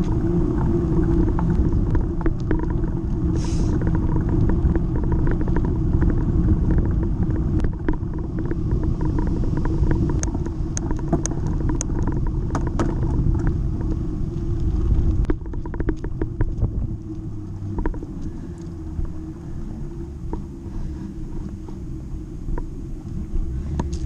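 Bicycle ride heard from a handlebar-mounted GoPro HERO Session: a steady low rumble of tyres on asphalt and wind on the camera, with scattered clicks and rattles from bumps. The rumble eases about two-thirds of the way through.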